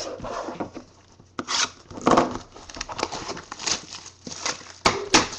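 Trading card box and its wrapping being torn open and handled by hand: irregular tearing, crinkling and rustling, with a sharp click near the end.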